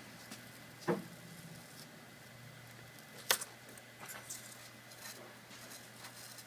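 Plastic prying tool working a laptop's plastic locking clips apart: two sharp clicks, about one second in and just past three seconds, with fainter ticks and light scraping between.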